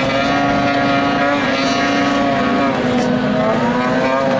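Outboard engines of small racing boats running flat out at high revs: a steady, high, buzzing engine note. About three seconds in, one note bends in pitch as the boats pass.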